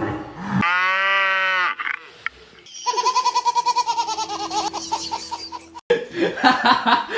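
A single long cry lasting about a second, then a baby laughing in rapid repeated giggles for about three seconds that cut off suddenly, followed by a person's laughter and voice.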